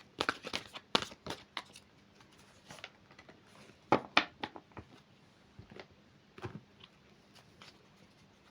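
Tarot cards being handled and shuffled: irregular clusters of light card flicks and rustles, the densest in the first second and a half.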